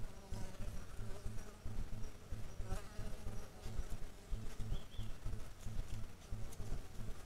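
A flying insect buzzing close to the microphone, its drone wavering in pitch and strongest in the first second and a half and again about three seconds in. Underneath, an irregular low rumbling pulse, with two short high chirps near the middle.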